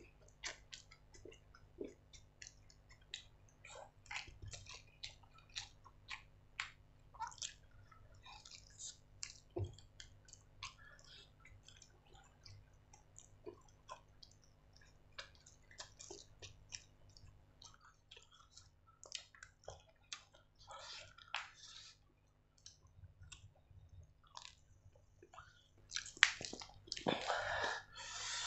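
Close-up chewing and wet mouth smacks of someone eating noodles and roast chicken: a run of short clicks and smacks, growing louder and denser near the end.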